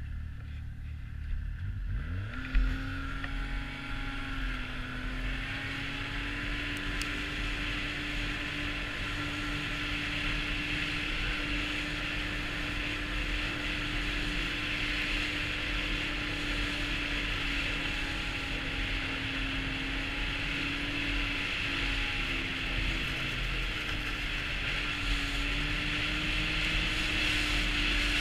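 Arctic Cat snowmobile's four-stroke three-cylinder engine revs up about two seconds in as the sled pulls away, then holds a steady high pitch while a broad hiss slowly gets louder as speed builds.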